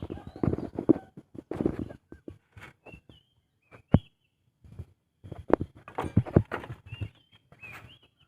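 Irregular knocks, clicks and rustles of close handling, with a few short, high chirps of birds between them.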